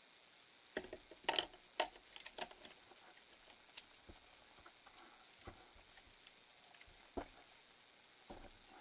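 Faint, scattered small clicks and taps: a quick run of them about a second in, then a few single ones spread over the rest.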